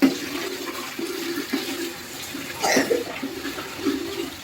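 Water running and splashing, with a louder, sharper sound about two and a half seconds in.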